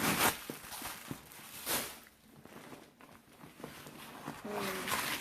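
Packing paper and plastic rustling and crinkling in several bursts as the stuffing is pulled out of a new backpack.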